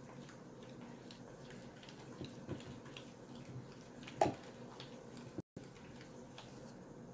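Faint scattered clicks and handling noises, with one louder short knock about four seconds in. The sound cuts out for an instant soon after.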